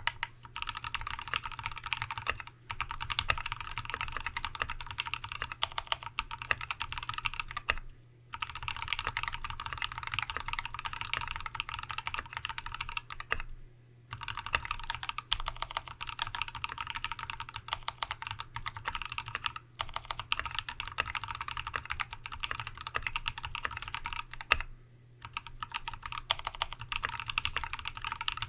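Continuous typing on a TX75v2 mechanical keyboard with a brass plate, lubed Tealios V2 linear switches with Cherry top housings, and Dev/tty keycaps: fast runs of keystrokes broken by short pauses every few seconds.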